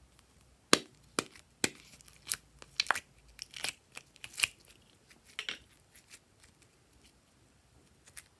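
Snap lids of a plastic pill organizer clicking open and the hard plastic box knocking as it is emptied: about ten sharp clicks in the first five or six seconds, then one more near the end.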